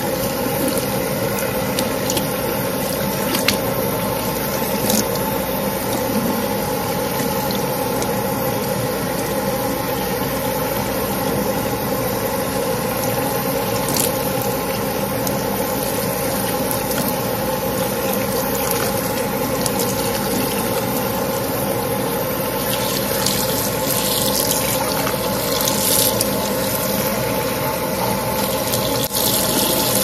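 Tap water running steadily and splashing onto wet hair as fingers work conditioner out of it, with a few faint clicks.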